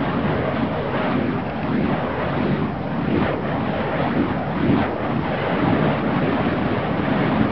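Burning fire poi whooshing through the air as they are spun: a steady rushing noise with a few brief swells as the flames sweep past.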